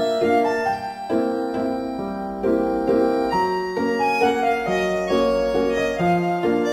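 Instrumental background music: a keyboard tune of single notes over chords, the notes changing several times a second.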